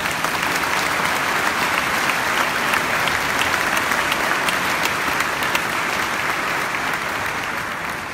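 Congregation applauding steadily in a church, a dense, even clapping that lasts several seconds and tails off near the end.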